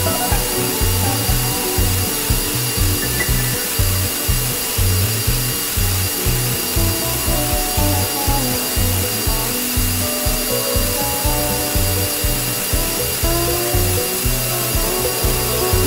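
Background music with a steady beat of about two thumps a second, over a Skil bench belt-and-disc sander running as small metal brackets are sanded on it.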